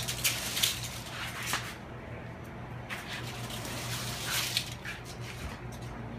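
Scuffling and rustling as a cat is grabbed and the phone is handled, in bursts near the start, about a second and a half in, and again from about three seconds in, over a steady low hum.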